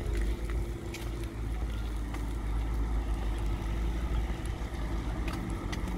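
City street ambience: a steady low rumble of traffic, with wind on the microphone, and a few faint clicks.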